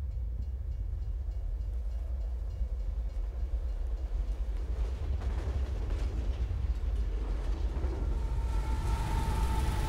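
A steady low rumble that slowly grows louder, with faint held tones joining near the end.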